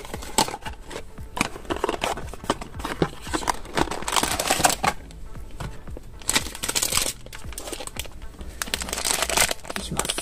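Crinkling and rustling of a foil blind-box bag and its cardboard box being handled: a dense run of short rustles and clicks with a few louder crackles, over background music.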